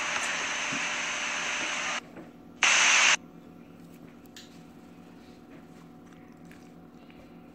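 Steady hiss that cuts off about two seconds in, then a short, louder burst of hiss lasting about half a second, followed by faint room tone with a few light clicks.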